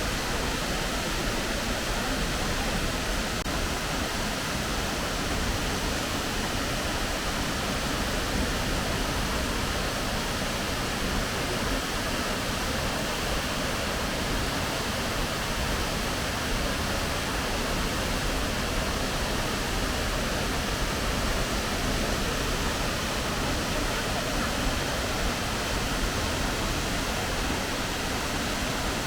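Fukuroda Falls' steady rush of falling water, an even, unbroken roar.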